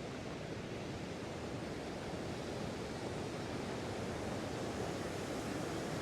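Waterfall's falling water rushing steadily, slowly growing louder.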